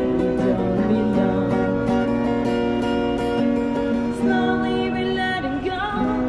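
Acoustic guitar strummed with a woman singing over it, amplified through a small portable busking amp; her voice comes in with wavering held notes in the second half.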